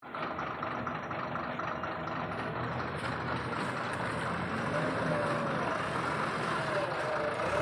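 Heavy diesel engines of a tipper lorry and a JCB 3DX backhoe loader running steadily. From about halfway a whine rises and falls in pitch.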